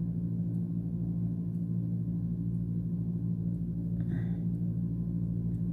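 A steady low-pitched hum made of several even tones, unchanging in level, with a faint short sound about four seconds in.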